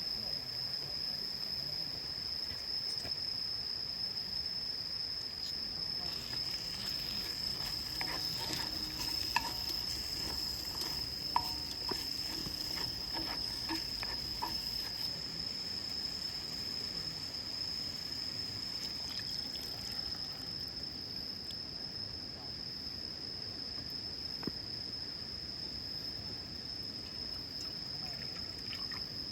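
An insect's steady, unbroken high trill over the soft rush of a stream, with scattered small clicks and clinks for a while around the middle.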